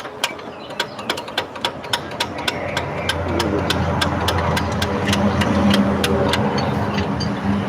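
Workshop mechanical noise: repeated sharp metallic clicks, irregular at a few per second, over a steady machine hum that grows louder about three seconds in.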